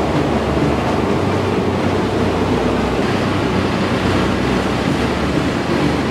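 Strong storm wind blowing across the microphone: a loud, steady rushing noise with no pauses.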